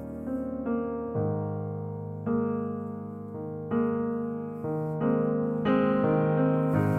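Background piano music: a slow melody of held notes and chords, a new note entering about once a second.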